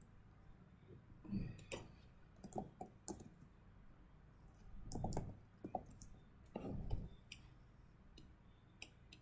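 Faint, irregular clicking of a computer mouse and keyboard keys, with a few duller knocks among the clicks.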